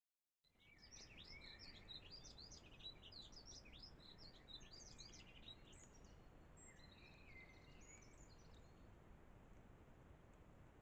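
Small songbirds singing: a dense run of quick, high chirps and slurred notes for the first half, thinning to scattered notes later, over faint steady outdoor background noise.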